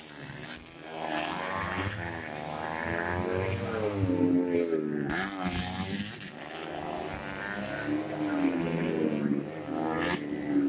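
125cc four-stroke underbone race motorcycles taking a corner one after another, their engines' pitch repeatedly falling as they slow for the turn and rising as they accelerate away. The engines are loudest as bikes pass close, about five seconds in and again near the end.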